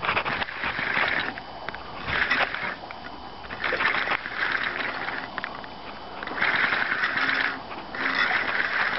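Fishing reel whirring in repeated short bursts of half a second to a second, as line is reeled in or pulled off against the drag while a fish is fought.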